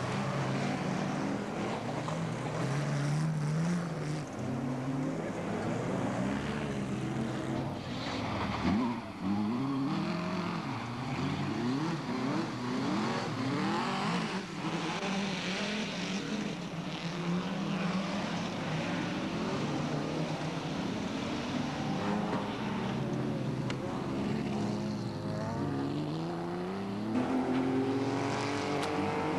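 Several autocross race car engines running at high revs, their pitches rising and falling over one another as they accelerate and shift. Near the end one engine climbs steadily in pitch.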